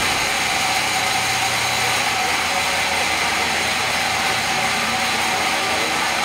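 Large sawmill band saw and its drive running steadily: a constant machine noise with a few high steady whining tones and no distinct knocks.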